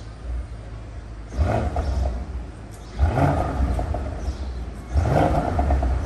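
Twin-turbo 4.0 V8 of an Audi RS6 through an Akrapovic cat-back exhaust, blipped three times while stationary. Each rev rises sharply and falls back to a low idle rumble.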